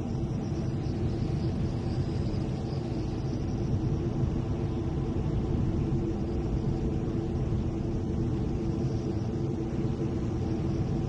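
Steady rumble of an Aermacchi MB-339 jet trainer in formation flight, heard inside the cockpit: turbojet engine and airflow noise, holding level with no rise or fall.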